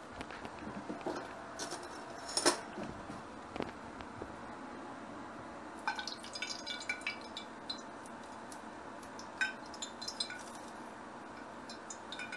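A metal spoon and a small frying pan knocking and clinking as hot oil is spooned out of the pan, with one louder knock about two and a half seconds in and a run of small clinks from about six seconds on.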